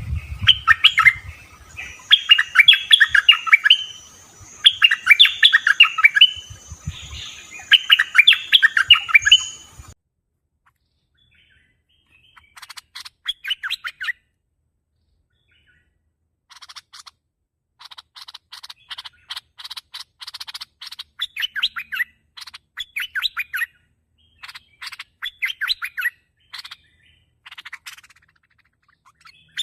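Bulbul (merbah) calls: four loud, rapid chattering phrases of bright notes, each about a second and a half long, then a sudden cut to silence about ten seconds in. After that come fainter, quicker runs of chirps, on and off.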